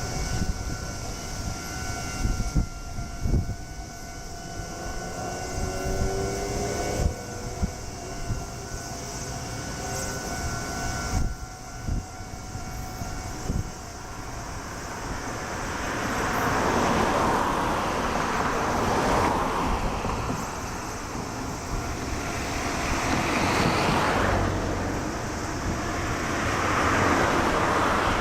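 A level crossing warning alarm sounding as a steady multi-tone ring that stops about halfway through, while a train runs past with a broad rumble that swells and fades twice.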